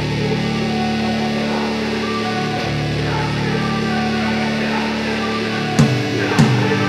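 Background rock music with long, held, distorted chords; sharp beats come in near the end.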